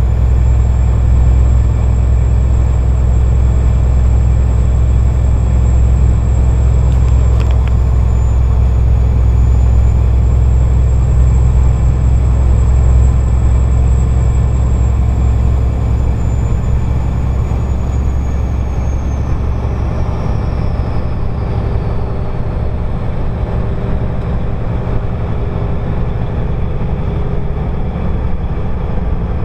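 Turbocharger whistling over the low drone of the engine and road noise while driving. The high whistle holds steady for a while, then slides slowly down in pitch and fades out about two thirds of the way through.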